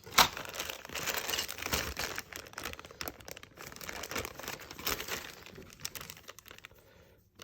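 Plastic bag crinkling and rustling as plastic model kit parts are handled, made of many small crackles, with a sharp click about a quarter second in. It dies down near the end.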